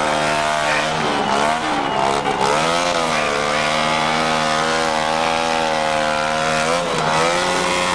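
Motorcycle engine revved hard and held at high revs while the rear tyre spins against the pavement in a smoking burnout. The revs climb, waver, then hold steady for several seconds before dropping briefly near the end and climbing again.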